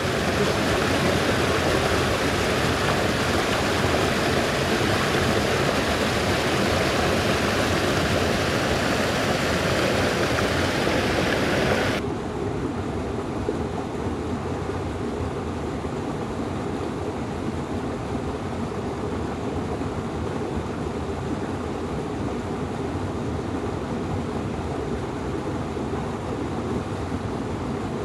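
Steady rush of creek water spilling over boulders into a deep pool. About twelve seconds in, the sound abruptly turns duller and quieter, with the high hiss gone.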